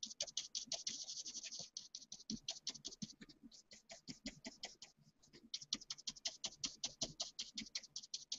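Paintbrush scrubbing quickly over paper in short back-and-forth strokes, feathering wet paint highlights into a painted face. The strokes come about six a second, with a denser stretch of rubbing near the start.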